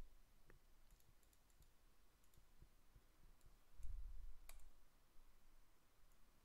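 Faint computer mouse clicks over near-silent room tone: a few soft ticks, a brief low thump, then one sharper click about four and a half seconds in.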